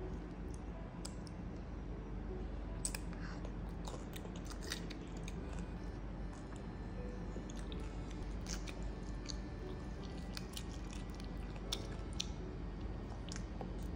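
A toddler chewing food, mouth noises with scattered small clicks and taps, over a steady low hum.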